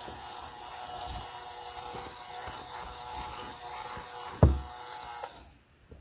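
Battery-powered toy iron running, giving a steady electronic hiss with a faint steady hum under it, while it is pressed onto a cloth. A loud thump comes about four and a half seconds in, and the hiss cuts off suddenly soon after.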